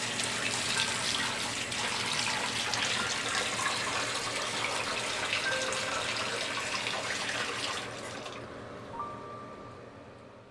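Water running from a bathroom sink tap over hands into the basin, a steady rush that dies away over the last couple of seconds.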